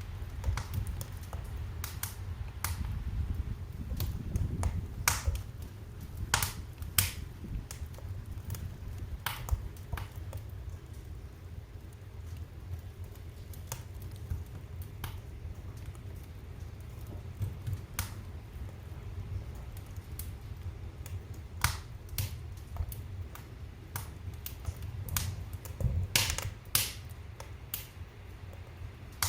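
Wood fire in a fireplace crackling: irregular sharp pops and snaps, often a second or more apart and bunched together near the end, over a steady low rumble.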